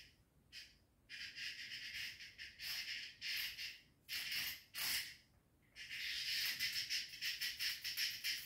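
A cat handling small prey in its mouth: bursts of rapid, high-pitched clicking, with the longest run in the last few seconds.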